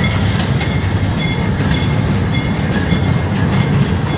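Fairground ride train running along its track, heard from aboard: a steady low rumble with scattered light clicks from the wheels and rails.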